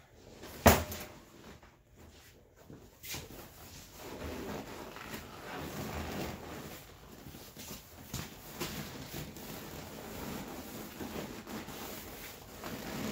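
Vinyl seat cover rustling and rubbing as it is handled and pulled down over the seat foam, with one sharp click less than a second in.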